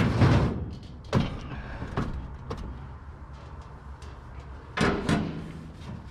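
A heavy piece of scrap metal being put down and shifted on a load of scrap. It clatters at the start, gives a few sharp knocks, and clatters again near the end.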